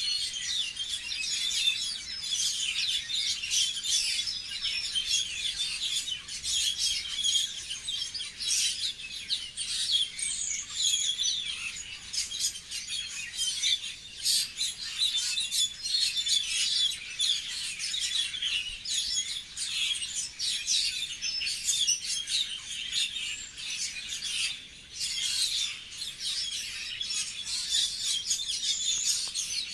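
Many small birds chirping and twittering at once: a dense, continuous chorus of quick, high chirps.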